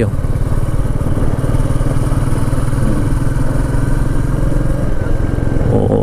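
Motorcycle engine running at an even, steady speed while the bike cruises along a road.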